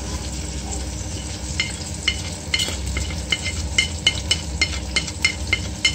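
A wooden spoon scrapes tempeh cubes off a plate into a pot of sofrito sizzling on the stove, with a run of quick light clinks of the spoon against the plate from about a second and a half in, about two or three a second.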